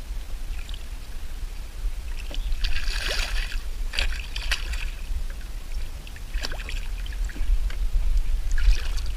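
A hooked largemouth bass thrashing and splashing at the water's surface beside a kayak, in several bursts from about two seconds in, the biggest around three seconds in. A steady low rumble runs underneath.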